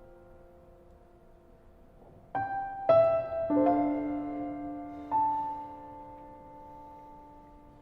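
Soft piano background music: a few single notes and chords struck slowly, each left to ring and fade.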